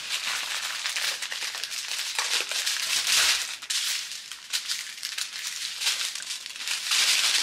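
Small plastic bags of diamond painting drills crinkling as they are handled and sorted, a continuous rustle with many small crackles.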